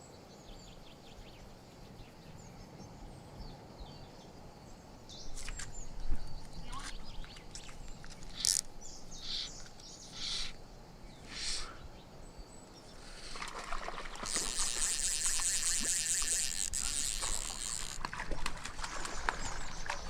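Wild birds calling: a run of short, sharp calls from about five to twelve seconds in, then a longer, dense rattling buzz for several seconds, over a quiet outdoor background.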